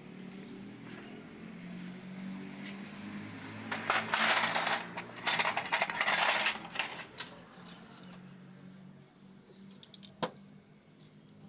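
Small metal pieces clinking and jangling together for about three seconds, then a few sharp clicks, over a steady low hum.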